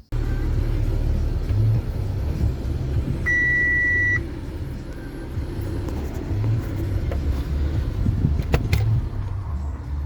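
Audi engine idling, with a single electronic chime beep about three seconds in.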